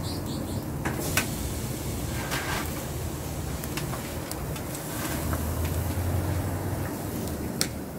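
Vegetable kebab skewers being lifted off a portable propane grill's grate and set on a baking tray, giving a few sharp clicks about a second in and near the end, over a steady low rumble that swells for a couple of seconds past the middle.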